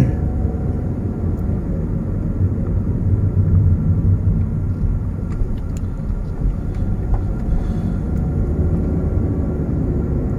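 Steady low rumble of a car driving along at road speed, a mix of engine and tyre noise.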